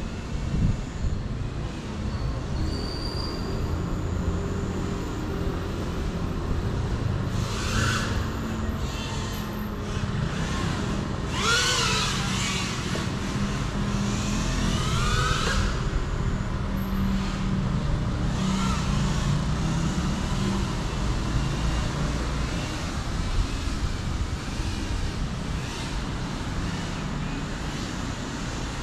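Small FPV racing drone's motors whining as it flies around, rising and falling in pitch several times as the throttle changes, over a steady low rumble.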